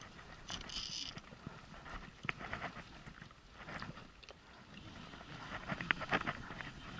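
Water slapping against a small inflatable boat, with faint irregular knocks and clicks from handling on board and a brief high buzzing tone about half a second in.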